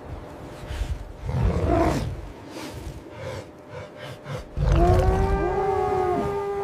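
Wolf howling: a short call with a low rumble about a second and a half in, then one long, steady howl starting about five seconds in.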